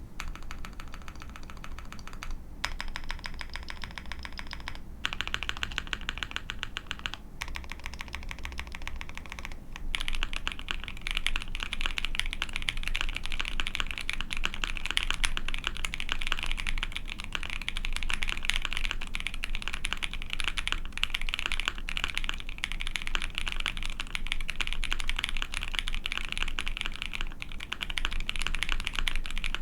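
Typing on an ai03 Vega mechanical keyboard with a POM plate, lubed Penyu linear switches and GMK Cafe keycaps. For about the first ten seconds the keys go in short runs with brief pauses between them, then fast continuous typing, a little louder, carries on to the end.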